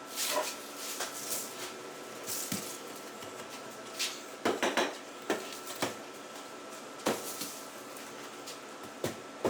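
Metal parts and tools being handled: scattered clinks and clatters, with a quick run of rattling knocks about four and a half seconds in, over a faint steady high whine.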